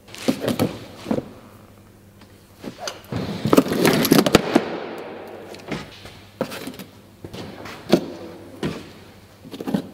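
Hydraulic hoses with crimped end fittings being pulled and lifted from a pile: fittings knocking and clicking against each other and the box, with a longer scraping drag of hoses about three to four and a half seconds in.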